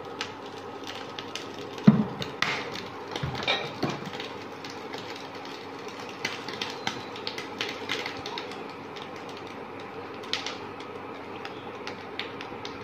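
A silicone spatula knocking and scraping against a hot non-stick wok as it spreads cooking oil, giving irregular clicks and knocks, the loudest about two seconds in. A steady low hum runs underneath.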